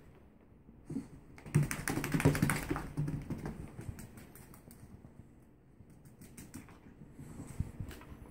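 A small dog's claws and paws tapping and scrabbling on a wooden floor and rug as it dashes about doing zoomies: a quick run of clicks about one to three seconds in, then scattered taps, with a few more near the end.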